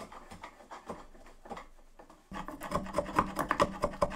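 Hand chisel paring the inside walls of a mortise in an oak mallet head: repeated short scraping strokes of steel on end and side grain, cleaning up the hole so both halves join. The strokes grow louder from about two seconds in.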